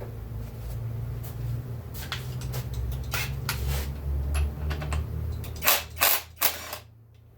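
Hand tools and metal chainsaw parts clicking and clinking during disassembly, with three sharper clacks close together near the end. A steady low hum runs underneath and cuts out just before the end.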